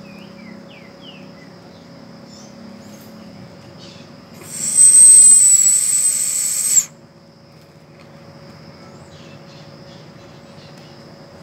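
A loud, steady, high-pitched whistling buzz from an animal. It begins about four seconds in and cuts off abruptly about two and a half seconds later.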